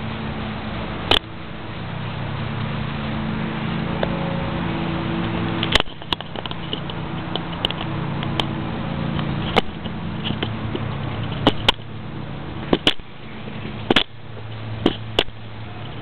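Sharp metal and fingernail clicks, scattered and irregular, from a stiff folding blade on a small pocket multi-tool being pried at and fumbled, over a steady low hum. The clicks come more often in the last few seconds.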